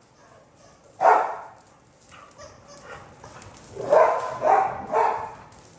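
A dog barking: one bark about a second in, then three quick barks near the end.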